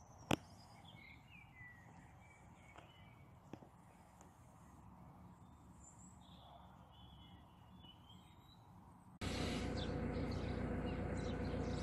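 Quiet outdoor ambience with faint bird calls and one sharp click shortly after the start; about nine seconds in it cuts to a narrowboat's engine running steadily as the boat cruises.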